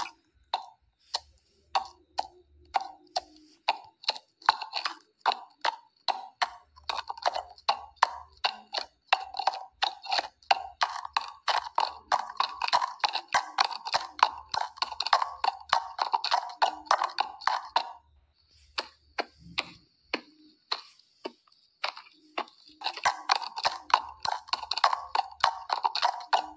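Horse hoofbeats, a galloping sound effect: sparse knocks at first, then a fast, dense run of hoof strikes. They break off for a few seconds about two-thirds through, then resume just as fast.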